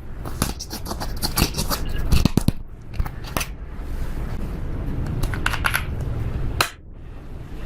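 Slime being kneaded and pressed by hand as eyeshadow is mixed in, making a dense run of sticky clicks and small pops. It goes quieter for a moment near the end.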